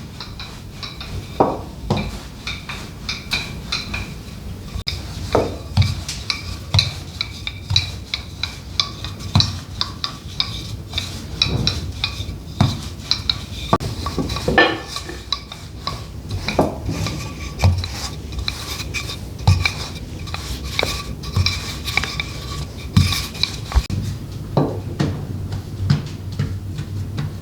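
Kitchen utensils clinking and tapping against dishes and pots, with stirring: irregular clinks about once a second or more, some leaving a short metallic ring.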